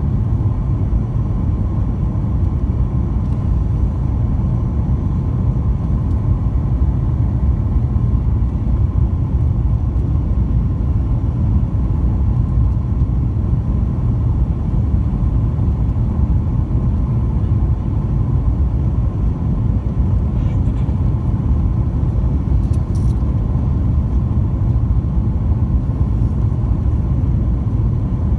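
Steady low cabin rumble of a Boeing 737-900 on final approach: its CFM56 jet engines and the rushing airflow, with a faint steady high tone above it, heard from inside the passenger cabin.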